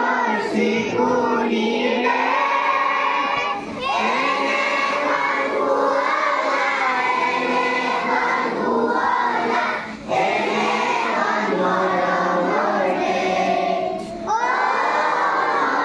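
A large group of children and women singing a song together in unison. They sing in long phrases with brief breaks between lines.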